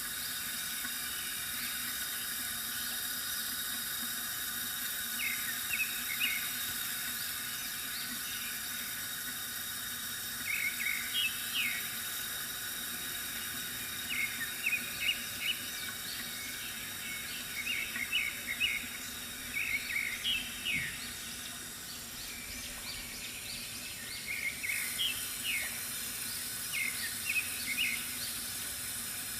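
Steady trickle of water from a bamboo water fountain, with birds chirping in short quick runs several times over.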